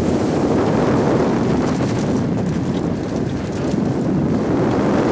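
Rush of wind buffeting the microphone of a camera riding on a moving rollercoaster train, a loud steady roar that eases slightly midway and swells again.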